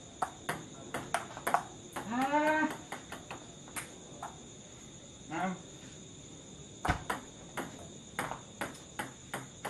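Table tennis ball clicking sharply and irregularly off paddles and table during play, with crickets trilling steadily behind. A short voiced call is heard about two seconds in and another, briefer one past the middle.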